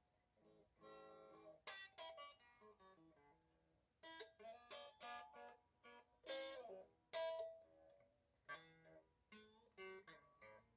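Fender Stratocaster electric guitar with its pickups removed, played unplugged so only the bare strings are heard, quiet and thin. It plays bluesy noodling in short phrases of picked notes, with brief pauses between phrases.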